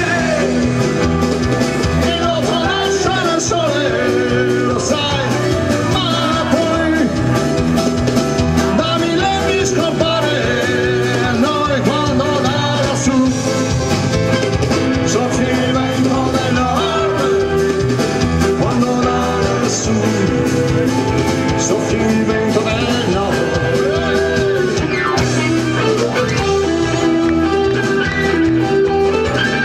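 A live rock band playing an instrumental passage of the song: electric and acoustic guitars, bass guitar, keyboards and drums, with gliding lead lines over a steady beat.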